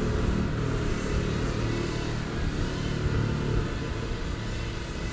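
GEPRC CineLog35 FPV drone flying, its motors' hum rising and falling with the throttle, over a steady low rumble.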